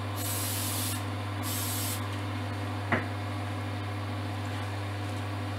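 Two short hisses of an aerosol can of super glue accelerator sprayed onto a pen blank turning on a lathe, to set the cyanoacrylate glue, over the steady hum of the lathe running. A light click comes about three seconds in.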